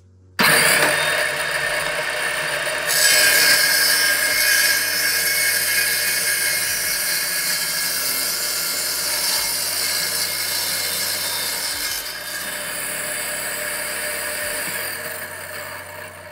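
Homemade table saw driven by a 5-1/2 in circular saw starting up suddenly, then cutting through a plywood block with its tilted blade. The sound gets louder about three seconds in as the blade bites into the wood, eases about twelve seconds in as the cut finishes, and fades near the end as the saw winds down.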